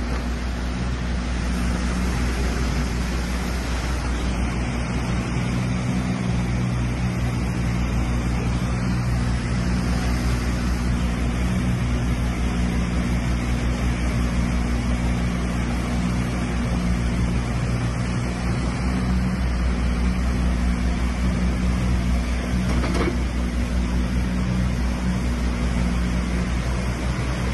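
Mattervispa river in flood, a swollen brown torrent rushing past: a loud, steady noise of rushing water with a strong low rumble.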